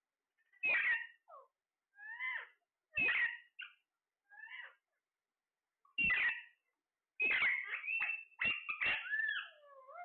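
Caged Alexandrine parakeets calling: short squawks that bend in pitch, about one a second, then a quicker run of calls in the last three seconds ending in falling notes.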